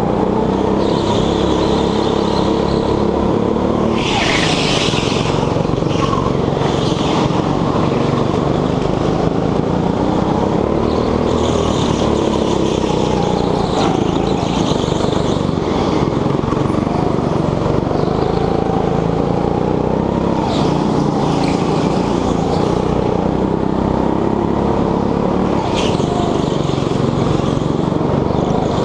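Petrol go-kart engine running hard, heard from the driver's seat, its pitch rising and falling as the kart accelerates and brakes through the corners, with other karts' engines around it. A brief tyre squeal about four seconds in.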